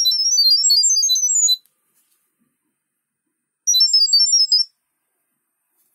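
Smartphone speaker playing the eWeLink app's sound-pairing tones: a rapid run of short, high-pitched beeps jumping between pitches, which stops about one and a half seconds in, then a second run of about a second near the middle. The chirps are the acoustic code meant to send Wi-Fi settings to a Sonoff GK-200MP2-B camera.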